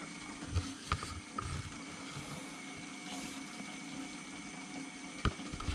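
Water in a planted aquarium trickling and bubbling steadily over a low steady hum, with a faint click about a second in and another near the end.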